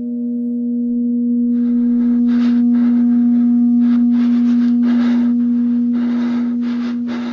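A steady low drone tone on the film soundtrack, swelling up and then easing off slightly. About one and a half seconds in, irregular bursts of hiss join it, two or three a second.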